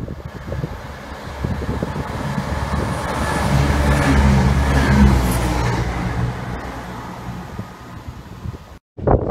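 CrossCountry Class 170 Turbostar diesel multiple unit passing through the station without stopping: its diesel engine note and wheel-on-rail noise swell as it approaches, peak as it goes by about four to five seconds in, then fade. The sound cuts off suddenly just before the end.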